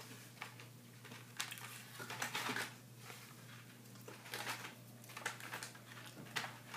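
A few soft knocks and rustles of small snack containers and packaging being handled, scattered through, over a steady low hum.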